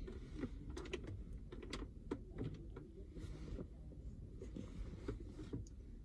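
Electric arc welding: the arc crackling and sputtering in irregular sharp clicks and short hissing spurts.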